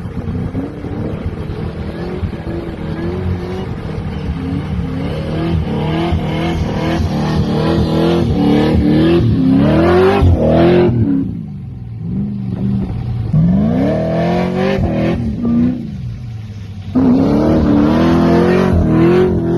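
Supercharged 6.2-litre LSA V8 in a Nissan GU Patrol, revving hard with its pitch rising and falling again and again. It climbs to a peak about ten seconds in and backs off, revs up again a few seconds later, and comes back loud and steady near the end.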